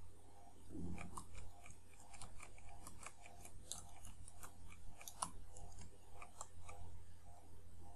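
Computer keyboard typing: a run of irregular key clicks over a steady low hum.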